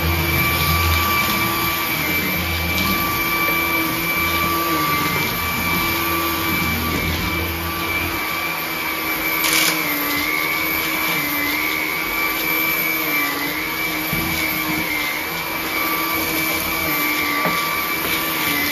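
Hart 20-volt cordless stick vacuum with a brushless motor running steadily with a whine, its pitch wavering slightly in the second half as it is pushed over the floor and a doormat. A low rumble under it fades about eight seconds in, and there is one sharp click about nine and a half seconds in.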